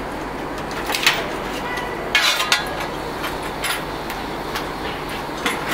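Metal firing shovel clinking and scraping at the firehole of the YG steam locomotive's firebox as the fire is lit up, a few sharp metallic clinks with a scrape about two seconds in, over a steady rushing noise.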